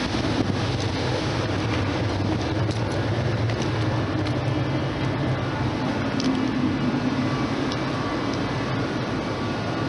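A steady low engine drone with a constant hiss over it, unchanging throughout.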